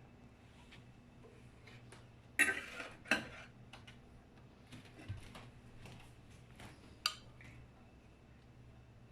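Kitchen dishes and cutlery being handled: two clattering knocks about two and a half and three seconds in, a sharp clink about seven seconds in, and small ticks in between, over a low steady hum.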